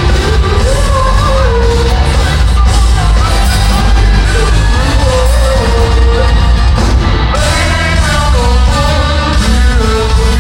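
Loud band music with a steady heavy bass and a wavering melodic lead line over it.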